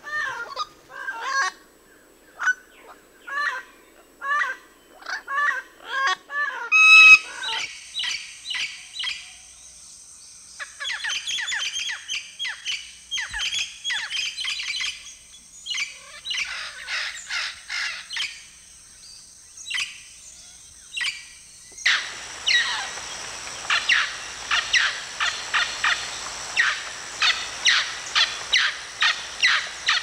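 Amazon parrots calling in turn. First a yellow-headed parrot gives short calls about once or twice a second, then a red-lored parrot calls in clustered runs, and from about twenty-two seconds a mealy parrot gives a fast, steady series of loud calls.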